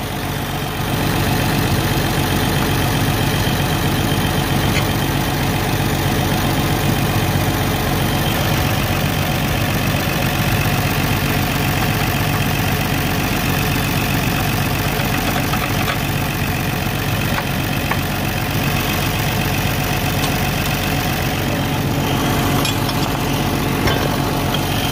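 Farm tractor engine idling steadily, heard up close beside the engine bay, with a few faint metal clicks from the loader mount.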